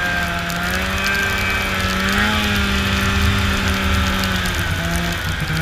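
Snowmobile engine running steadily while riding, its pitch rising a little about two seconds in and dipping briefly near the end as the throttle changes.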